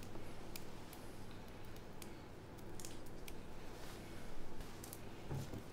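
Several people picking fresh herbs by hand: soft rustling with scattered small snaps and clicks as leaves are pulled and stripped off the stalks into small bowls.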